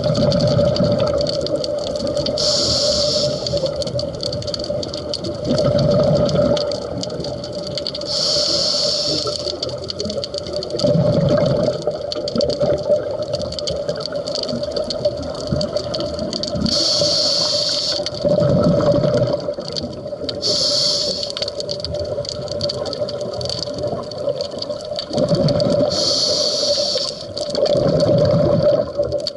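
Scuba diver breathing through a regulator underwater: a short hiss from the demand valve on each inhalation, then a rumbling gush of exhaled bubbles, repeating every six seconds or so over a steady hum.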